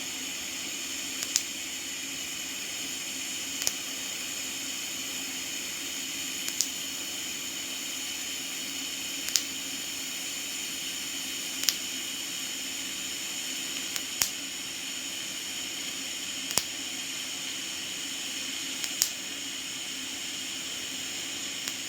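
TIG welder running with a steady hiss and hum. A short sharp tick comes about every two and a half seconds.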